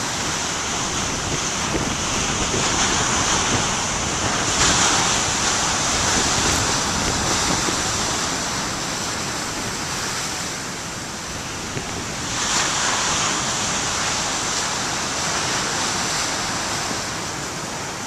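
Heavy ocean surf breaking on a rocky shore: a continuous rushing wash that swells louder twice, about four and a half seconds in and again about twelve seconds in, as big waves crash.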